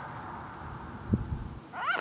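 Mute swan giving one short nasal call near the end, rising and then falling in pitch. A low thump sounds about a second in.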